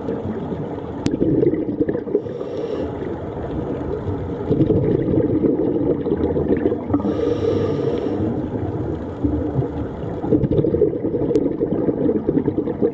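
Underwater ocean ambience: a steady low wash, with a short hissing, bubbling burst recurring about every five seconds.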